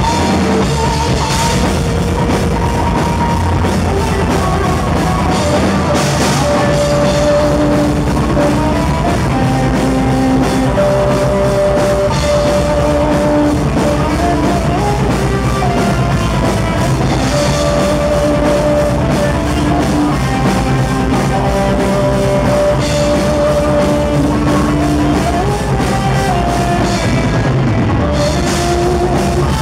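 Live hard rock band playing loudly: electric guitars, bass guitar and drum kit, with held melodic notes running over a steady drum beat.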